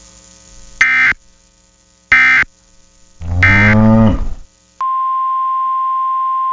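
Three short bursts of EAS SAME digital data screech, the end-of-message code closing the previous weather warning. The third burst is overlaid by a louder low sound falling in pitch. About five seconds in, the steady single-pitch NOAA Weather Radio 1050 Hz warning alarm tone starts and holds.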